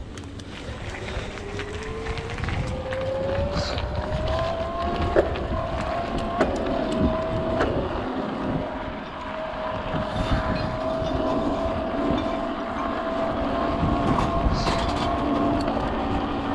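Mountain bike rolling fast down a trail: a hum that rises in pitch as it picks up speed over the first few seconds, then holds steady, over wind rumble on the microphone, with scattered sharp knocks from bumps in the trail.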